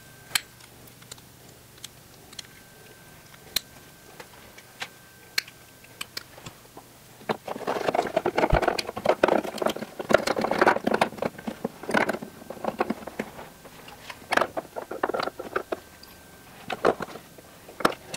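Small metal door-latch parts (racks, rods and pins) clicking and clattering against a fiberglass door as they are worked by hand. There are a few scattered clicks at first, then a dense run of clatter from about seven seconds in.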